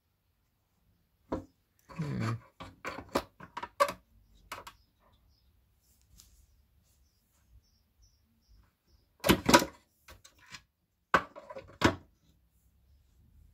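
Handling noise from speaker drivers and the metal cabinet they sit in: a run of sharp clicks and knocks in the first few seconds, a quiet stretch, then a few louder knocks in the last few seconds.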